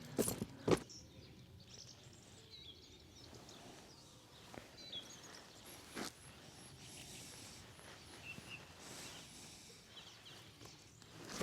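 Faint birds chirping in quiet outdoor ambience, broken by a few sharp knocks in the first second, a lone click about halfway, and a louder knock at the very end.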